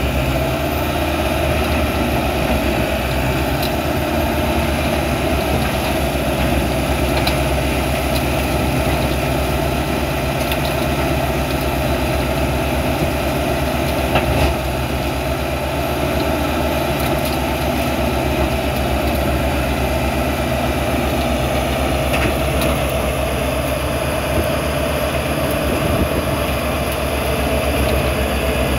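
Willibald MiniShark MS 3000 shredder running steadily under load as it shreds green waste fed in by a grapple loader. A few short knocks stand out, the loudest about halfway through.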